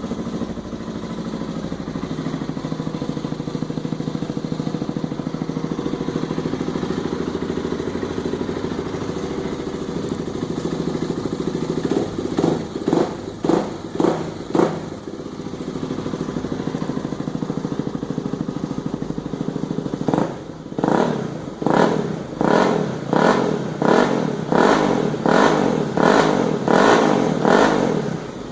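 Honda Falcon 400i single-cylinder motorcycle engine, fitted with an aftermarket sport exhaust and air filter, idling steadily after a start. It is revved in short throttle blips: a group of about four partway through, then back to idle, then a quick run of about nine near the end.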